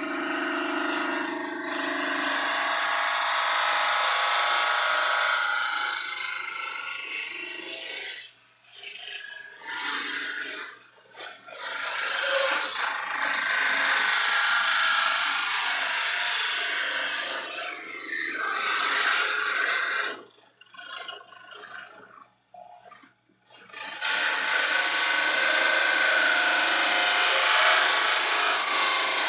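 Bandsaw cutting through a thermoformed plastic guitar-body shell, a loud rasping cut in several long stretches that break off about eight seconds in and again for a few seconds around twenty seconds in.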